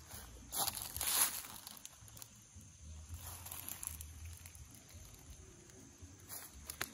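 Soft rustling and scuffing of dry grass and brush, with two brief louder rustles about half a second and a second in, over a faint low rumble and a few small clicks near the end.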